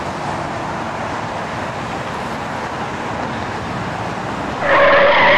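Street traffic noise: a steady hiss of a car passing on the road. Near the end a louder, briefer sound rises over it.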